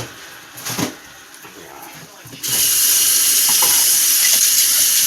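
A kitchen sink tap is turned on about halfway through and water runs steadily and loudly into the sink. A short knock comes about a second in, before the water.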